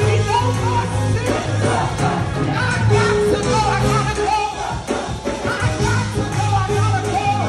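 Live up-tempo gospel music: a choir singing with a band, a steady bass line and a driving beat underneath.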